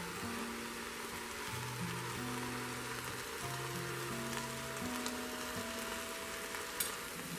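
Tomato and green bean stew sizzling in an Instant Pot on its sauté setting, a steady hiss under background music of slow held notes.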